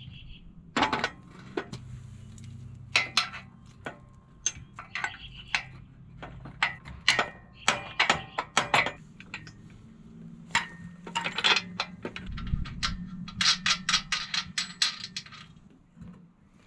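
Steel clinks and knocks of an engine hoist's hydraulic ram being fitted back into the hoist frame, metal parts striking and scraping irregularly, over a low steady hum.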